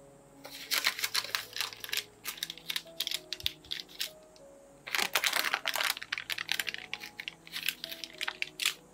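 Parchment paper crinkling and rustling as it is peeled away from the sides of a set slab of chocolate. It comes in three spells: about half a second in, around five seconds in (the loudest), and near the end, over soft background music.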